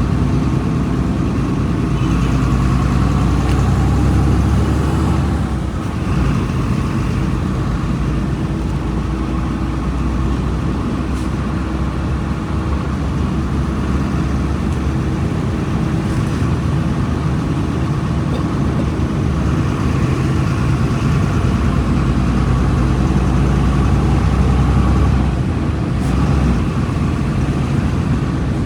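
Diesel engine of a Volkswagen Volksbus 17.230 EOD bus running, a steady low engine note that dips briefly about six seconds in and again near the end.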